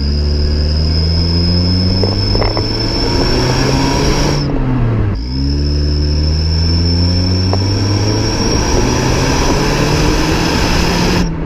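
1999 Toyota Corolla's four-cylinder engine pulling hard twice in first gear, revs climbing and then dropping as the throttle is lifted about four seconds in and again near the end. A cheap exhaust-tip turbo whistle gives a thin, high, nearly steady whistle through each pull that cuts off when the throttle closes. Recorded close to the exhaust, from the rear bumper.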